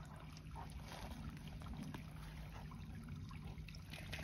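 Faint, steady trickle of running water from a small creek, over a low steady hum.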